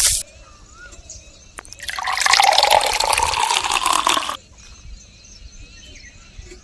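Water pouring or splashing for about two and a half seconds, starting about two seconds in and stopping abruptly. Faint bird chirps are heard in the quieter stretches.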